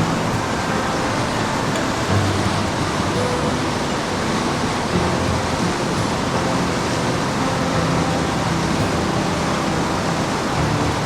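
Rushing water of a mountain stream swollen by typhoon rain: a loud, steady roar. Faint music sits under it.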